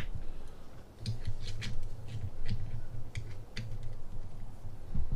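Helicoil thread tap being turned by hand in a stripped transmission bolt hole, cutting new M8 threads and periodically reversed to clear chips, giving irregular sharp metal clicks and creaks over a low rumble.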